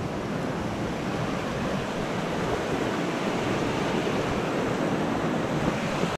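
Fast-flowing creek water rushing over rocks in a small cascade: a steady wash of water noise.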